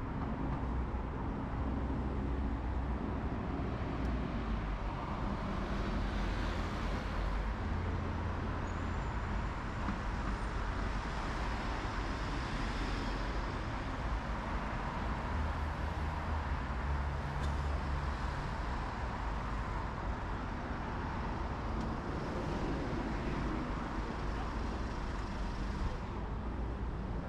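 Steady road traffic passing on a wide multi-lane boulevard: tyre hiss over low engine rumble, swelling a few times as nearer vehicles go by.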